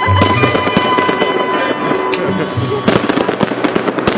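Fireworks going off: sharp bangs and crackling, growing into a dense run of crackles about three seconds in.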